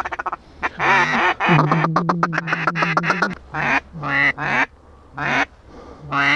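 Hunters blowing mallard duck calls at ducks circling overhead, trying to work them into the decoys. A loud quack, then a long fast chatter, then several shorter groups of quacks toward the end.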